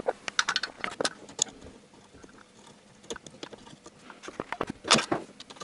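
Scattered small clicks and taps of hands and a tool working an air-conditioning hose fitting in a car's engine bay, thickest in the first second and a half, with a louder knock about five seconds in.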